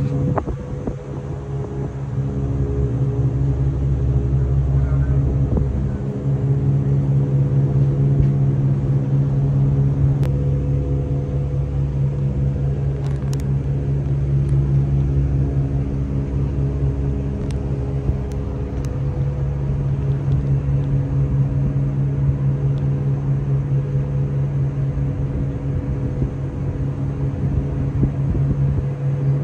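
Fireboat's diesel engines running with a steady low drone while the boat is underway.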